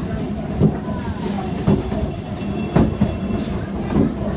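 Wheels of a suburban electric local train rumbling and clattering over rail joints and points as it pulls into the station, heard from on board, with irregular sharp knocks. A brief thin wheel squeal comes about halfway through.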